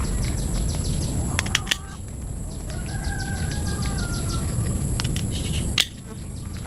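Outdoor rural sound of steady footsteps or a walking animal, with a few sharp clicks and one short bird or fowl call about three seconds in, over a steady high insect-like whine.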